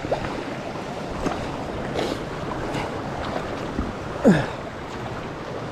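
A bicycle moving over a rough, steep track: a steady rushing noise with scattered knocks and clicks. One short, loud sound falls steeply in pitch about four seconds in.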